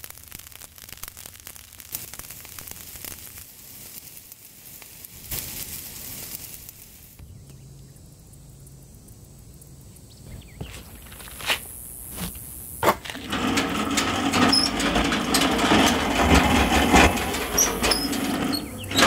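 Wood embers crackling with scattered sharp pops. About two-thirds of the way in, a few loud clicks lead into a louder grinding, squealing metal sound from the Grillworks grill's wheel-and-crank mechanism being turned, which stops abruptly at the end.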